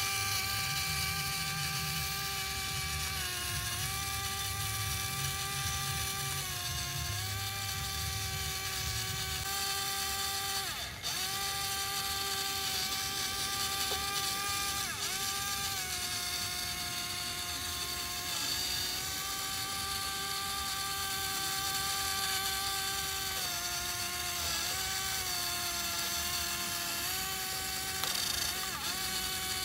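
Small electric drive motor and gearbox of a toy tractor whining steadily. The pitch sags briefly several times as the motor loads up pushing the blade through the sand.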